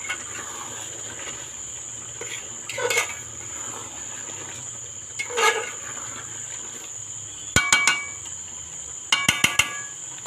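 A cricket trills steadily and high. Near the end come two quick runs of sharp metallic clinks, dishes or utensils knocking together.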